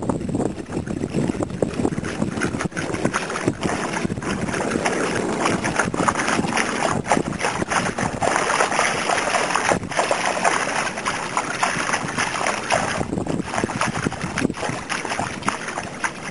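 Splashing as a dog and a person wade through shallow seawater, a dense run of irregular sloshing strokes, with some wind rumble on the microphone.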